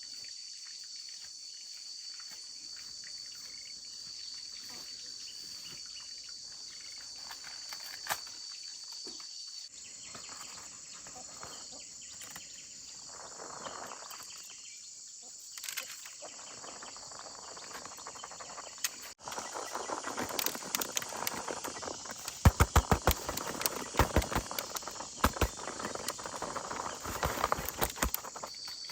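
A steady high chorus of insects in the background. About two-thirds of the way in, a run of sharp knocks and clicks with rustling handling noise starts, louder than the insects.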